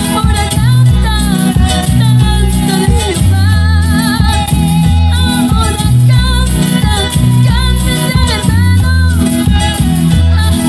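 Live Latin gospel band playing a praise song, with a woman singing the lead melody with vibrato over a heavy, stepping bass line, drum kit and keyboards.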